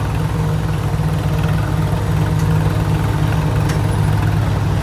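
Tractor diesel engines running steadily with a heavy, evenly pulsing low chug.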